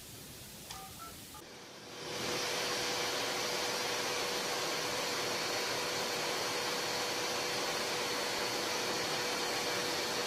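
Steady hum and hiss of a running motor with a high whine in it, starting suddenly about two seconds in and holding level.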